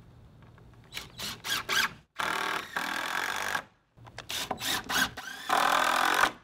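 Cordless drill driving screws through plastic sheeting into the frame's top rail. It goes in two rounds: a few short trigger bursts, then a longer steady run each time.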